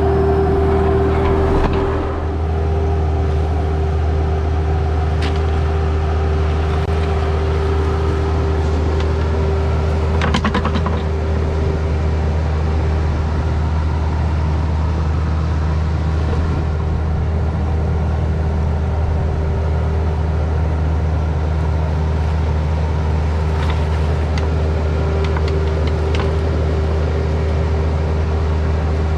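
Bobcat E26 mini excavator's diesel engine running steadily under work, a deep hum with a steady higher tone over it and a few short knocks, the biggest about ten seconds in.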